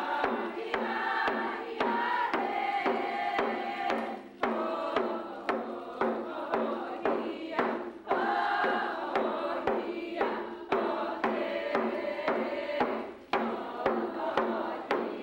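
A group of voices singing a traditional Athabascan song together, over a steady beat on hand-held frame drums struck with sticks.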